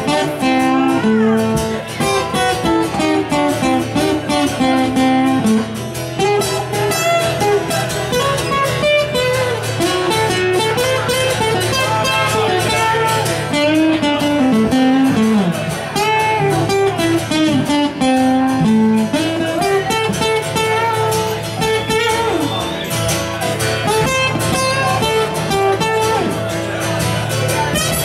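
Two acoustic guitars playing a blues-style instrumental passage live, one picking a single-note lead line over the other's chords.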